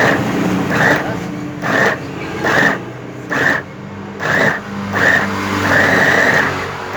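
Electric mini meat grinder's small motor pulsed on and off in short whining bursts, about one every second, with one longer run near the end, as its button is pressed and released.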